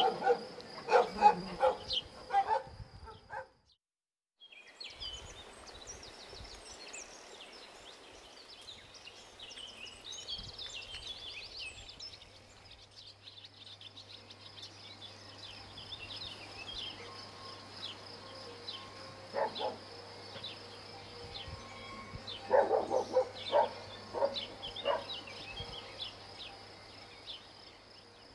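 Dogs barking in quick bursts for the first couple of seconds, then a short silence. After that, birds chirping over outdoor background noise, with another run of dog barks about three quarters of the way through.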